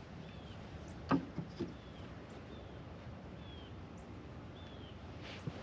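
A bird chirping outdoors in short high notes repeated about once a second, with two wooden knocks about a second in as a piece of 2x4 window framing is handled.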